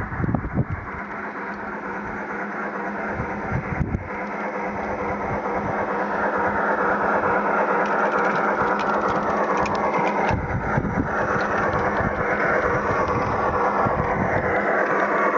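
Accucraft K27 garden-scale steam locomotive running toward and past, its onboard Sierra sound unit playing steam-engine sound while its wheels run on the track, growing steadily louder as it approaches. The owner says the old sound system is not quite set up right.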